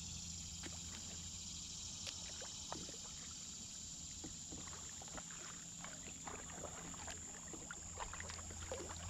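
Kayak being paddled through still water: the paddle blade dipping in with soft splashes and scattered drips.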